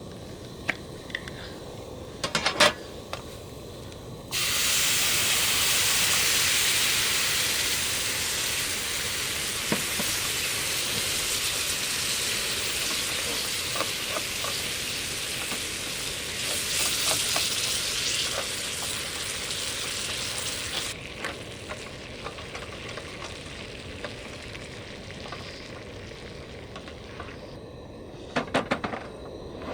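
Food sizzling in a hot pan on a folding camp stove. The sizzle starts suddenly about four seconds in, eases a little, and stops abruptly about two-thirds of the way through. A few sharp utensil clicks come before it, and a clatter of cookware near the end.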